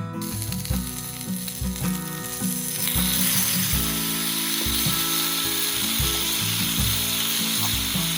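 Steak sizzling as it cooks, a dense hiss that grows fuller and louder about three seconds in and cuts off suddenly at the end, over soft acoustic guitar music.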